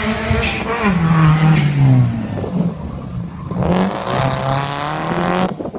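Rally car engine revving hard as the car slides past on a dirt course, its pitch dropping after the first second. Then it revs up loud again and stops abruptly near the end.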